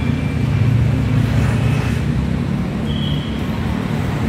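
A motor vehicle engine running close by, a steady low rumble, with city street traffic around it.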